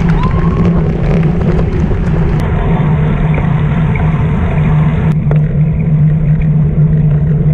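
Heavy wind buffeting and road rumble on a racing bike's onboard camera microphone as it rides in the peloton, a dense low roar with a steady low hum under it. The sound shifts abruptly twice, at about two and a half and five seconds in.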